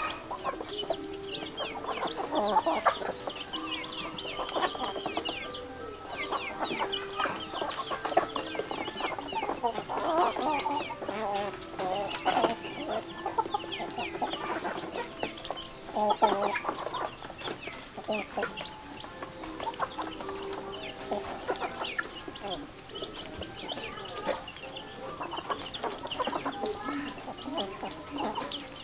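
A flock of chickens, roosters and hens, clucking and calling as they feed, many short calls overlapping, with frequent short clicks among them.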